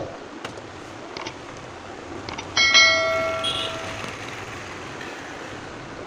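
A bright bell-like chime rings once about two and a half seconds in, several clear tones fading away over about a second and a half, with a short thump right at the start.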